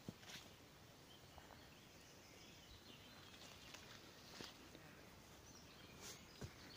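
Near silence: faint outdoor garden ambience with a few soft clicks and occasional faint bird chirps.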